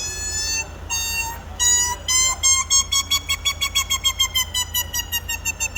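A man imitating a male parrot's call with his voice: two drawn-out whistle-like notes, then a long run of quick repeated chirps, about five a second.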